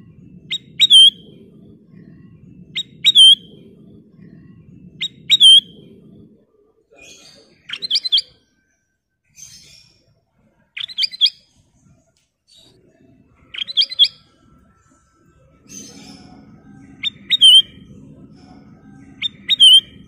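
Ruby-throated bulbul (kutilang emas) calling: about eight short, loud phrases, one every two to three seconds. Each phrase is a couple of quick notes ending in a bright up-and-down whistle. A faint low rumble sits underneath during the first six seconds and the last four.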